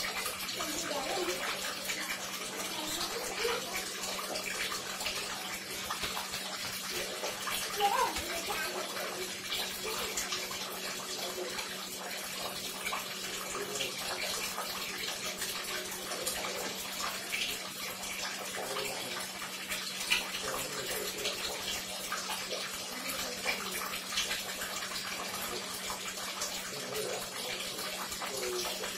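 Water running and splashing, with many small irregular splashes, over a steady low hum.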